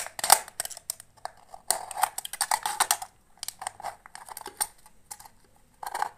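Thin aluminium drink can being cut and opened around its side: irregular crackling clicks as the metal gives way, in short runs with a quieter stretch in the second half.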